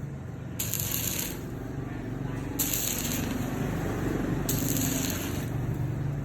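Welding arc hissing in three short bursts about two seconds apart, over a steady low hum.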